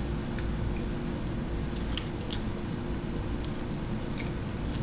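A person chewing a mouthful of noodles, with a few faint wet mouth clicks and smacks over a steady low hum.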